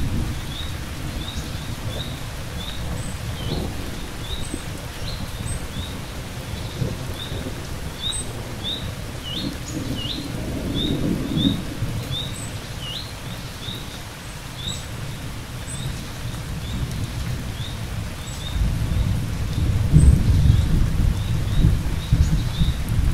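Thunderstorm with steady rain and rolling thunder: a low rumble fades in the first second, swells briefly about ten seconds in, and builds into a long roll from about eighteen seconds on. Over it, a high chirping repeats about twice a second.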